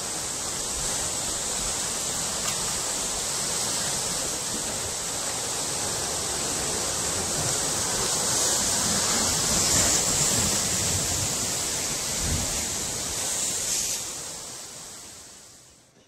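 Ocean surf: a steady rushing hiss with some low rumble, fading out over the last couple of seconds.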